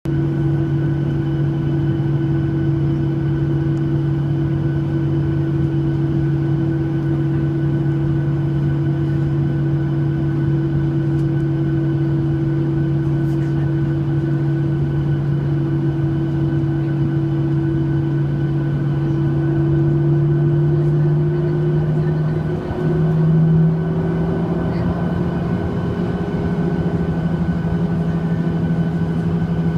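Steady droning hum inside the cabin of a Boeing 737-800, from the engines and the air systems. About two-thirds of the way in, the pitch edges slightly higher.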